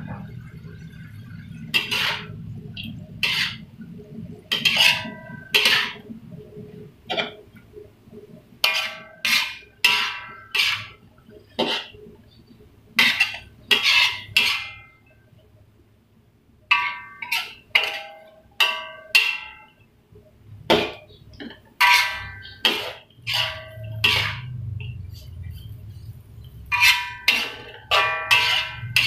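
Metal spatula clanking and scraping against a metal wok as water spinach is stir-fried, in irregular runs of sharp ringing strikes with a brief lull about halfway through.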